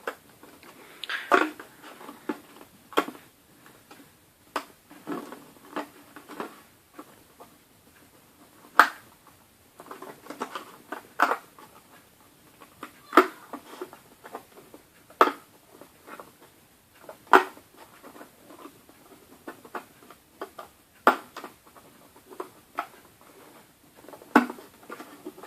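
Hands handling and adjusting a freshly made rubber band bracelet, with its plastic loom and hook nearby: irregular small clicks and taps, a few every couple of seconds.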